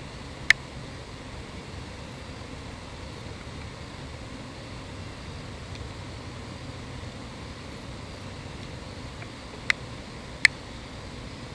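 Steady low outdoor background rumble and hiss, broken by three sharp clicks: one about half a second in, then two about a second apart near the end.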